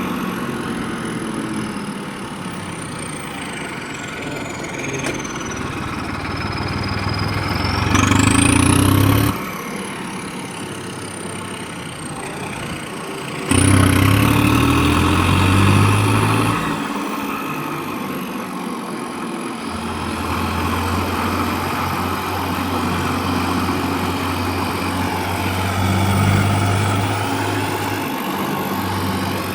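A vehicle engine running steadily. It drops away abruptly about nine seconds in, comes back louder about four seconds later, and changes note again a few seconds after that.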